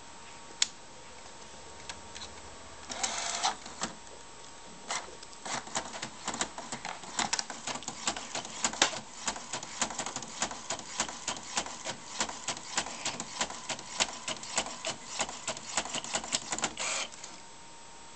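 All-in-one printer printing a page: a short whir as it pulls in the sheet about three seconds in, then a long run of rapid clicks and whirs as it prints, stopping suddenly as the page is pushed out near the end.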